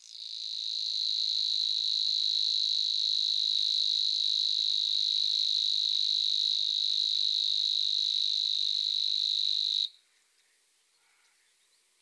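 A steady high-pitched buzzing trill that swells in over about a second, holds unbroken for nearly ten seconds, then cuts off suddenly.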